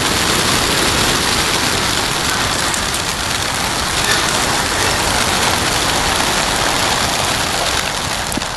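A large flock of racing pigeons released at once from a transport crate, their massed wingbeats making a loud, steady rush.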